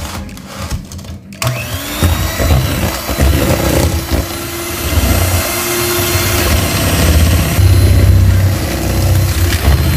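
Electric hand mixer switched on about a second and a half in, then running steadily with its beaters whirring through cookie batter in a plastic bowl.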